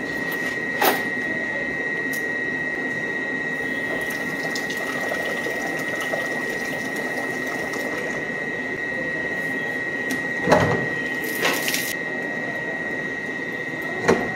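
Steady high-pitched whine over an even mechanical whir, with a few knocks and one brief hiss about eleven seconds in as a Pentair Everpure water filter cartridge is handled on its filter head.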